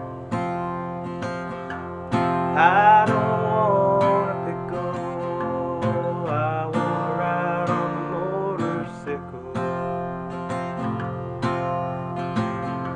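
Music: an acoustic guitar strummed in a folk song, with a melody line that slides up and down in pitch from about two seconds in.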